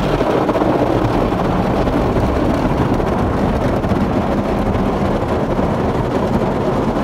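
WashTec SoftLine 2 tunnel car wash working over the car, heard from inside the cabin: a loud, steady rush of water spray and washing equipment on the body and roof.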